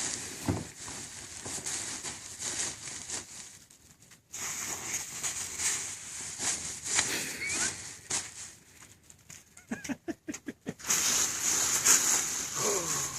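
Bubble wrap popping under a truck's tires in dense crackling runs like fireworks, with a short pause about four seconds in and a run of separate snaps before the loudest burst of popping near the end.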